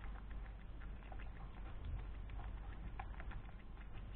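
African pygmy (white-bellied) hedgehog chewing its food: quick, irregular small clicks and smacks of its jaws, with a low steady hum underneath.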